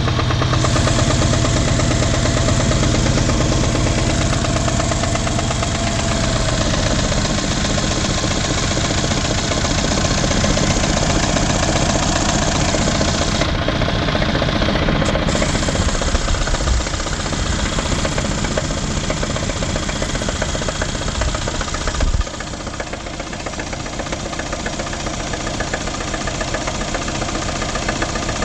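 Mercedes-Benz CLS550's twin-turbo V8 idling with a steady, rapid knock, which the owner places on the passenger side of the engine while no check-engine light is on. About three-quarters of the way through there is a short thump, and the engine sounds a little quieter after it.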